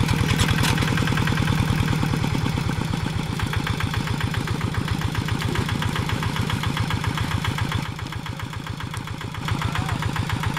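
Single-cylinder Kubota diesel engine of a Quick G1000 hand tractor running with a steady, rapid knocking beat. It is a little quieter for a moment near the end.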